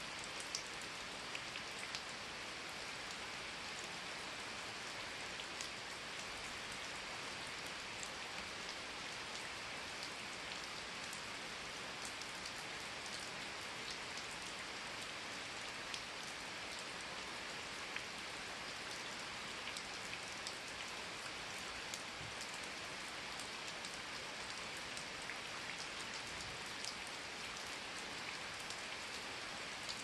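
Steady rain falling on forest leaves and ground, a continuous even patter with scattered individual drops ticking sharply.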